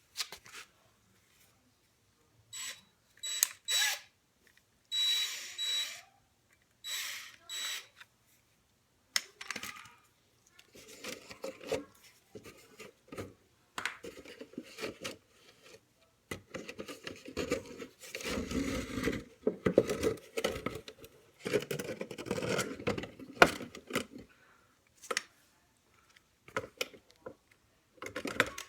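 A handheld electric drill, driving a mixing paddle, spun in three or four short bursts with a high whine, followed by a long stretch of irregular knocking, scraping and handling noises.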